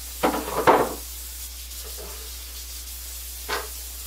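Kitchen faucet running into the sink while a cutting board is rinsed and rubbed clean under it, with a louder burst of scrubbing and knocking about half a second in and a brief one near the end.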